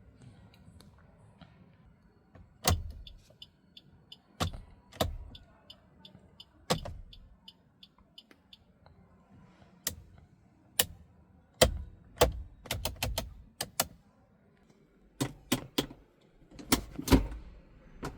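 Sharp clicks and knocks from a Suzuki S-Cross car's fittings and controls, with a fast, even ticking for several seconds in the first half.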